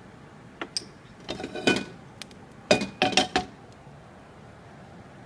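Ceramic spoon knocking and clinking against cookware as a little cooking oil is spooned into a nonstick pan: a few light knocks, then two clusters of sharp, briefly ringing clinks about two and three seconds in.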